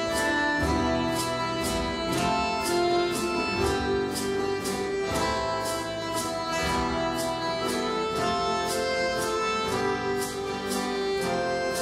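A Santo Daime hymn played by a small acoustic ensemble: accordion, violin and guitar carrying the melody, with maracas shaking a steady beat about two to three times a second.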